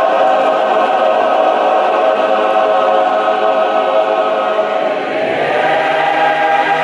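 A large group singing together, the choir on stage joined by the standing audience, holding long notes and moving to a new one about five seconds in.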